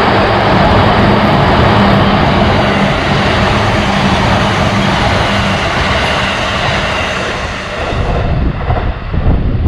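A train running past with a loud, steady rushing noise and a low hum. It dies away about eight seconds in, leaving uneven low rumbling.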